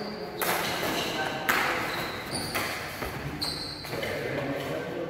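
Badminton rackets striking a shuttlecock in a doubles rally, about one hit a second, echoing in a large hall. Short high squeaks from shoes on the court floor follow some of the hits.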